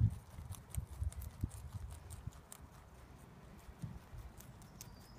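Lop-eared rabbits chewing dandelion stems and leaves: rapid, irregular crunching clicks. A low rumble fades out over the first two seconds.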